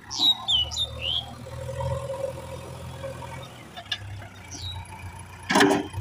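JCB backhoe loader's diesel engine running steadily as the machine works, with a few short high squeaks near the start and again later. A loud clatter comes near the end.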